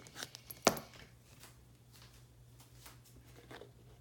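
A metal buckle on the leather closure strap of a waxed canvas knife roll being handled and unfastened. It gives one sharp click about two thirds of a second in, with a couple of lighter clicks just before it and faint rubbing of leather and canvas afterwards.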